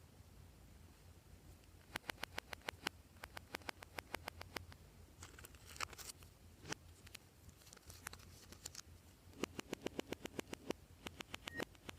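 Glossy slime being mixed by hand, giving quick runs of small sticky clicks and pops with short pauses between.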